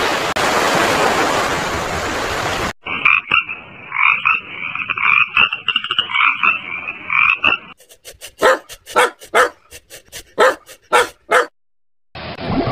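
Frogs croaking: a run of rhythmic pulsed calls, then a series of separate sharp clicking croaks, about three or four a second. The croaking is preceded by about three seconds of steady rushing hiss.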